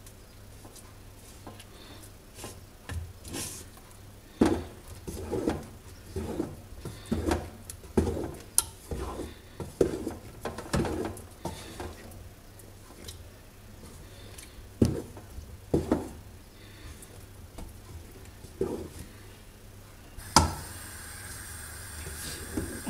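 Wooden spoon stirring a thick sesame-and-hazelnut paste in a large aluminium pot, with irregular knocks and scrapes against the pot, about one or two a second. Near the end comes one sharp knock, then a steady hiss.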